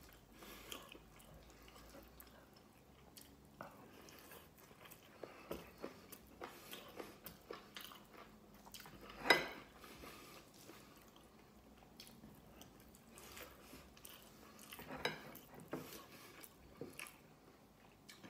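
Close-miked eating sounds: a person chewing chicken wings and rice eaten by hand, with small wet smacks and clicks. One louder sharp sound about halfway through.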